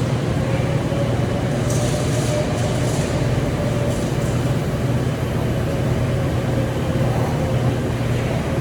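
Steady low machine hum, with short bursts of high hiss about two seconds in and again around four seconds.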